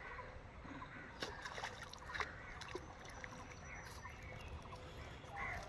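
A hooked fish splashing as it is yanked out of a small pond on a bamboo pole: a few short, sharp splashes and taps over the first four seconds, with a low rumble and faint bird chirps behind.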